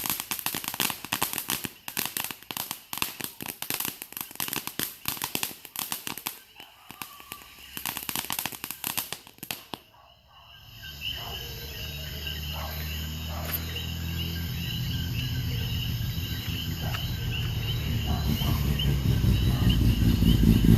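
Fireworks crackling: a dense, rapid run of sharp pops and bangs. About halfway through it stops abruptly, and a steady low engine hum takes over, growing louder toward the end like an approaching vehicle.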